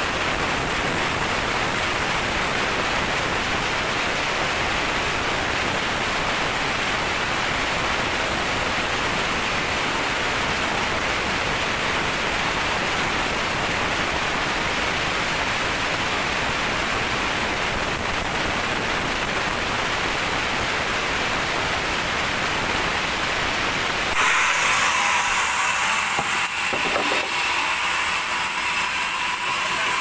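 Large sawmill band saw cutting lengthwise through a teak log: a steady, even rush of sawing noise. About three-quarters of the way through, the sound switches abruptly to a different, lighter machine noise.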